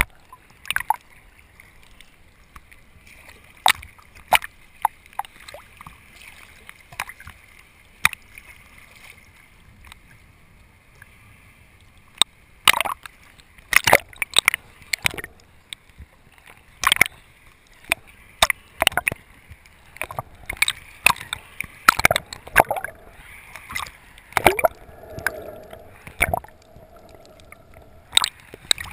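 Muffled underwater sound picked up by a GoPro in its sealed housing: a low water hiss broken by irregular sharp clicks and knocks, with a brief faint hum near the end.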